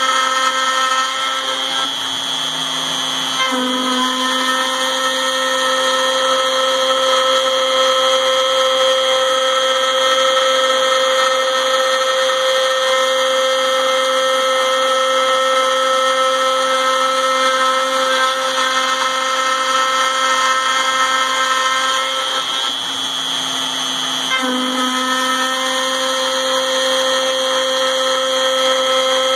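The compact router spindle of a MillRight Mega V CNC machine whines at high speed while its end mill cuts a dry aluminum plate. The sound is a steady, pitched machine whine. Its pitch and level dip briefly twice, about two seconds in and again about 23 seconds in.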